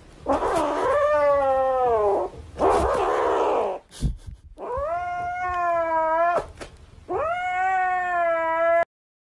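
Grey kitten yowling: three long, drawn-out wails that waver and sag in pitch, with raspy, hissy stretches between them. It is a possessive warning over the plush toy it is clutching while a hand reaches for it.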